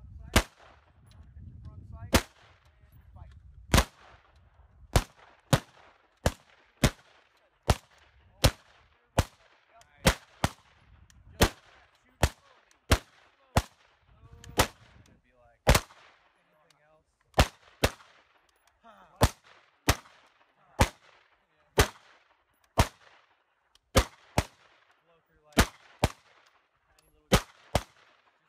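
Rifle fire on a range: single shots at a steady pace of about one to two a second, with short pauses between strings, about forty shots in all.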